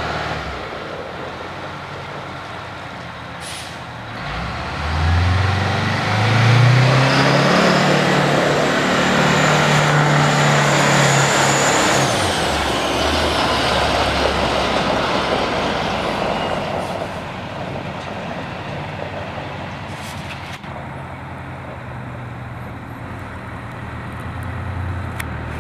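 Oshkosh M977 HEMTT 8x8 truck's Detroit Diesel 8V92 two-stroke V8 diesel as the truck drives past. The engine note climbs about five seconds in and holds loud and steady. About halfway through it drops off and settles to a lower steady run.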